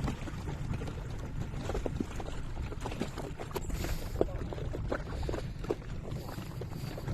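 Wind rumbling on the microphone aboard a small boat on choppy water, with water splashing and scattered knocks against the hull. There is a louder hissing splash about four seconds in.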